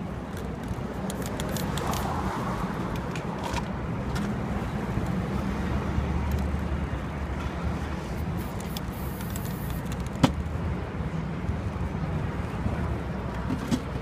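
Steady city street traffic rumble, with a single sharp click about ten seconds in.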